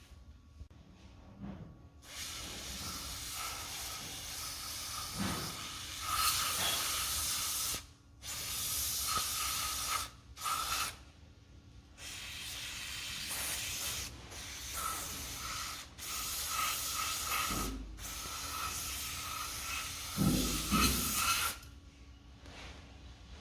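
Aerosol can of penetrating spray hissing in about eight bursts of one to six seconds each, sprayed into a bicycle bottom bracket shell to flush out the grit behind a creaking crank. A couple of low knocks come near the end.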